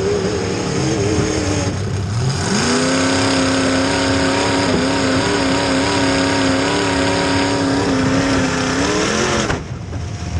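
Demolition derby car engine revving hard. The pitch wavers and dips, then climbs at about two and a half seconds and holds at a steady high pitch for several seconds under full throttle. It drops away about nine seconds in.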